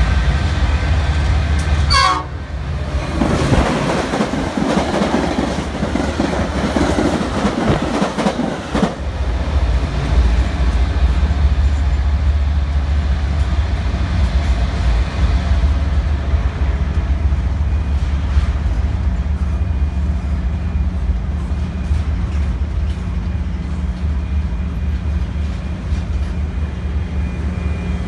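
BNSF double-stack intermodal freight train rolling past, a steady deep rumble with wheel clatter. From about three to nine seconds in, a louder passing Metra commuter train and a train horn rise over it.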